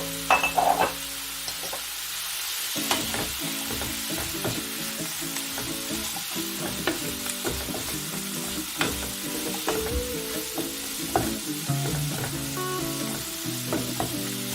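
Food sizzling as it fries in a pan, with a utensil stirring and a few clinks near the start. Soft background music plays underneath.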